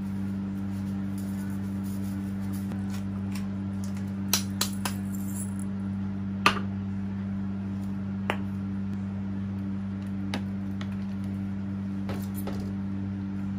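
Steady low electrical hum under a few sharp clicks and light knocks of a ladle and containers against a nonstick cooking pot. The clicks come in a quick cluster about four seconds in, the loudest at about six and a half seconds, then single ones spread through the rest.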